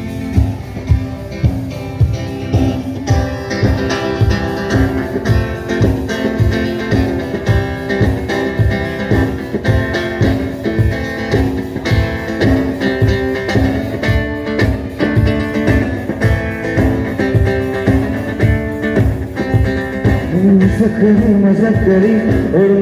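Live acoustic guitar strumming chords over a drum kit keeping a steady beat, an instrumental passage with no vocals for most of it. Near the end a male voice comes in singing.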